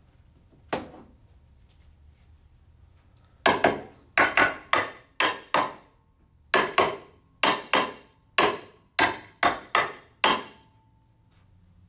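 A hammer tapping the aluminium case half of a Nissan RE0F09B (JF010E) CVT down onto the transmission case to seat it: one knock, then about fifteen sharp taps in quick runs, the last one leaving a faint metallic ring.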